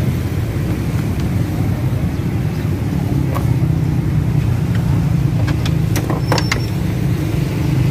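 A steady low vehicle engine rumble, with a few sharp plastic clicks near the middle and again about six seconds in as a headlight assembly is pushed and clipped into place.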